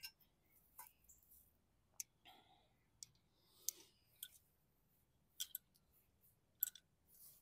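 Faint, scattered clicks and light taps, about eight over several seconds with the sharpest near the end: small bolts, screws and parts being handled and fitted during reassembly.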